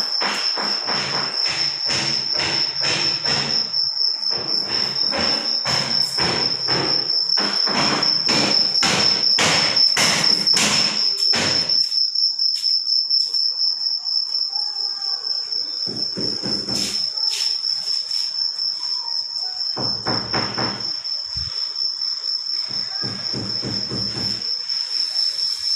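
A cricket trilling steadily at a high pitch throughout. Over the first dozen seconds a rapid run of knocks and clatter sounds, with a few shorter bursts of knocking later on.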